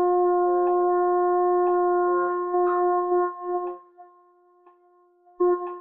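Double French horn holding a long tone: the written C (sounding F) that opens a long-tone warm-up, steady and even until it tapers off a little past three seconds in. A metronome ticks once a second beneath it and is heard alone in the gap, and a short note is sounded near the end.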